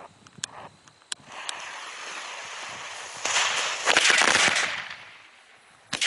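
A small Demolition Cracker firecracker going off: its fuse hisses for about two seconds, then it breaks into a loud, dense crackle of rapid pops that fades out after under two seconds. A sharp knock comes near the end.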